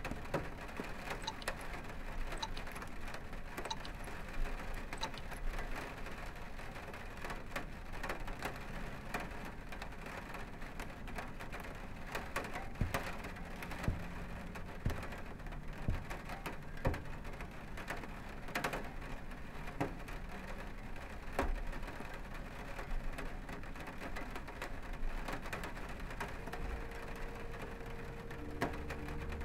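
Steady rain falling on a window and surfaces, with scattered drips and taps and a few louder knocks. Low held tones come in near the end.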